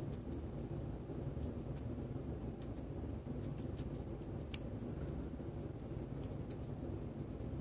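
Faint, sparse metallic clicks and taps of tweezers and small brass parts as the back plate of a verge fusee watch movement is lined up on its pivots, with one sharper click about four and a half seconds in. A steady low hum runs underneath.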